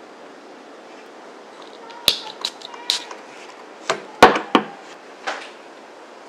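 Clicks and knocks of a glass Jo Malone cologne bottle and its metal cap being handled on a table, loudest about four seconds in. A short hiss follows, the atomizer spraying the cologne onto the wrist.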